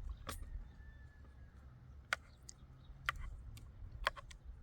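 A few faint, scattered clicks over a low background rumble.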